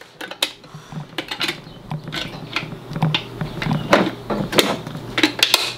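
Irregular plastic clicks and knocks as the battery cover is fitted onto a battery-powered toy blender's plastic base and the base is handled on a tabletop.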